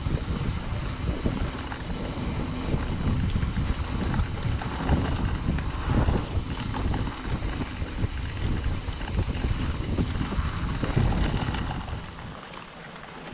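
Wind buffeting the microphone of a mountain bike rider's camera while riding fast along a dirt forest trail, with the rumble of the bike over the ground. It drops off near the end.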